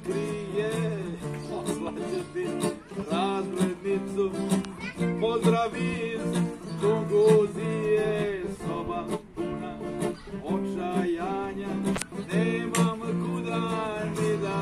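Two acoustic guitars played together, strummed chords under a run of picked melody notes, with no break.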